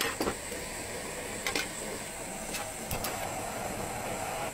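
Portable gas camping stove being set up and lit: a few sharp clicks and clacks, then the burner catching about three seconds in and its flame hissing steadily.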